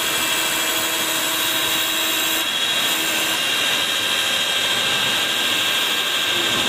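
CNC wood turning lathe (YN1530) spinning a wooden blank and turning it into a shaped furniture leg: a steady high-pitched machine whine over a constant hiss. A lower hum drops out about two and a half seconds in.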